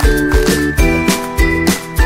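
Upbeat background music with a steady beat of about three strokes a second and bright held notes over it.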